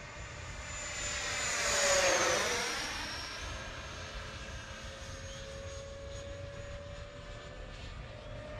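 Electric ducted fan of an E-flite F-16 70 mm RC jet whining in a fast flyby. It grows loud to a peak about two seconds in, its pitch drops as it passes, then a steadier, fainter whine follows as it flies off.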